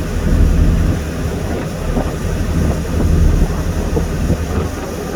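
Boat under way: a steady low engine drone with wind buffeting the microphone.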